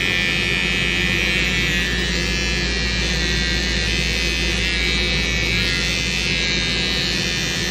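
Wahl Stylique pet trimmer buzzing steadily at a constant pitch while it shaves the short hair on a dog's face.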